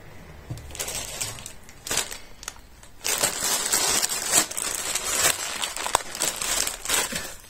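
A plastic mailer bag rustling and crinkling as it is handled and pulled open. Scattered rustles at first, then a dense run of crinkling from about three seconds in.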